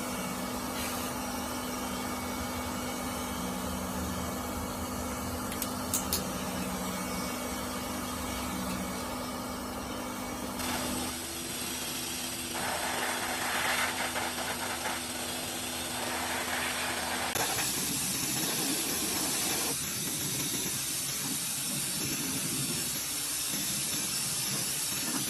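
High-velocity pet dryer (blaster) blowing air: a steady, loud hiss over a low hum, changing character abruptly twice, about eleven and seventeen seconds in.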